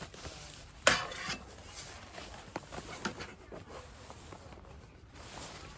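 Handling noises: one sharp knock about a second in, followed by a few faint scattered taps and rustling.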